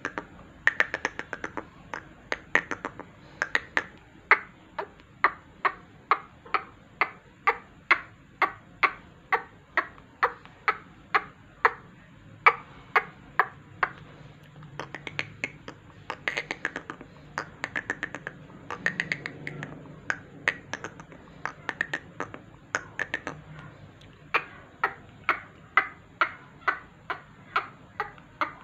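Sharp, rhythmic clicking, about two clicks a second, with a few runs of quicker, softer clicks. It is a call sound played to set a caged black francolin calling.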